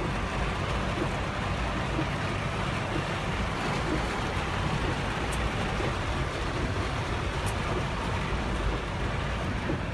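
Heavy rain falling steadily on a car's roof and windows, heard from inside the car as an even rushing noise.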